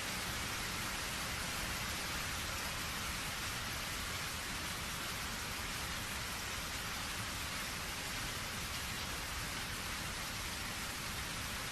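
Steady rain, an even hiss of many raindrops with no change in strength.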